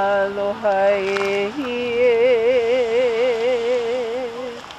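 A single voice chanting a Hawaiian oli in long held notes. About a second and a half in, it steps up to a higher note held with a wavering vibrato that fades near the end.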